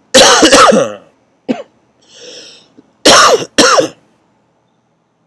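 A man coughing and clearing his throat. One long harsh burst comes at the start, then a short one, and two sharp coughs about three seconds in, with a breath drawn in between.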